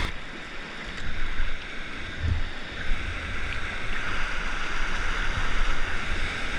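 Whitewater rapids rushing around a kayak, with paddle strokes splashing into the river; the rush of the rapid grows louder in the second half.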